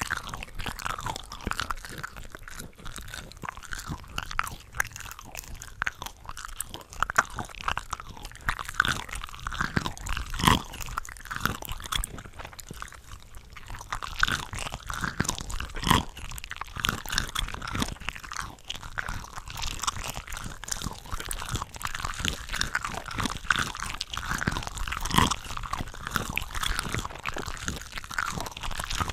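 Close-miked chewing and biting of cooked shrimp from a shrimp cocktail ring: dense wet crackles and clicks, several eating tracks layered over one another, with a few louder bites about ten and sixteen seconds in.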